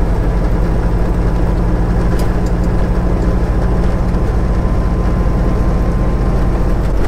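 Semi-truck's diesel engine running steadily at low speed, with road noise, heard inside the cab. A faint steady whine sits over the low engine drone.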